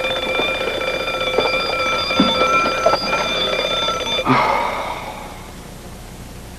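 Alarm clock bell ringing steadily, then cut off abruptly about four seconds in, leaving a short fading ring.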